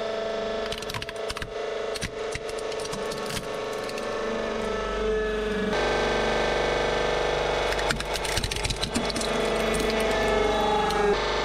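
Hydraulic press running with a steady motor-and-pump hum as the ram crushes a plastic toy airplane, with many sharp cracks and snaps of breaking plastic. After a cut about halfway through, it crushes a model car, with more cracks, creaks and crunching as the body flattens. The pump's whine rises in pitch near the end of each crush.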